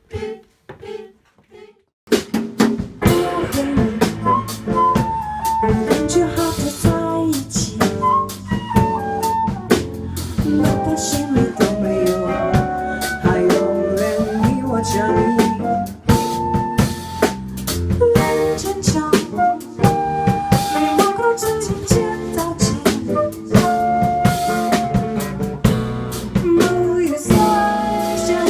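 Live small band playing a chanson: drum kit, bass, flute and acoustic guitar, with a woman singing into a microphone. It opens with about two seconds of short, evenly spaced vocal sounds, then cuts abruptly to the full band.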